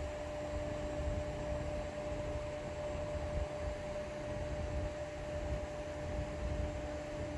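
Prusa XL 3D printer's Z-axis stepper motors driving the print bed down during the self-test: a steady whine over a fan-like hiss. A second, lower tone drops out for a couple of seconds in the middle and comes back.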